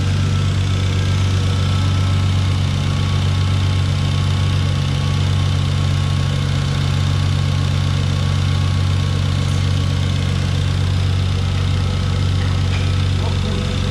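Turbocharged BMW straight-six engine idling steadily, a constant low hum. It is running for a crankcase-pressure test: heavy blow-by is pushing pressure up from below, which the owner puts down to a probably worn-out engine.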